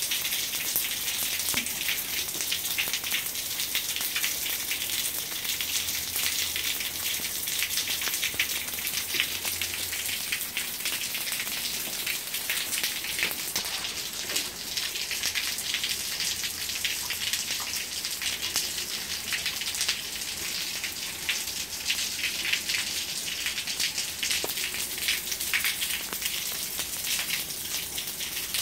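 Steady rain falling on a wet brick-paver courtyard: a dense, even patter of many small drop impacts.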